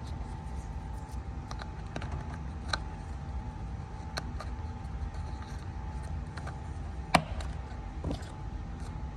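Light, scattered clicks and taps of plastic trim pieces and clips being handled by hand, the sharpest tap about seven seconds in, over a faint steady hum.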